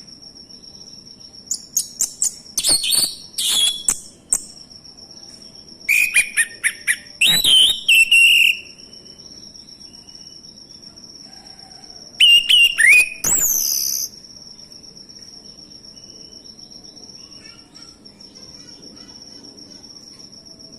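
Male orange-headed thrush singing in three bursts of loud whistled phrases with rising and falling notes, over a steady high insect-like tone.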